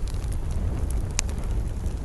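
Wood campfire crackling: scattered sharp pops and snaps, the loudest about a second in, over a steady low rumble.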